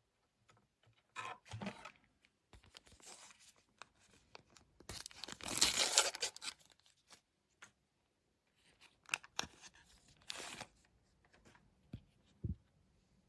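Wrapper of a trading-card pack being torn open and crinkled in several short bursts, the longest and loudest about five to six seconds in.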